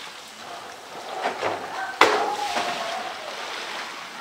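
A polar bear knocking a blue plastic polytank about: one sharp knock about halfway through, with a short ringing after it, and a smaller knock shortly before.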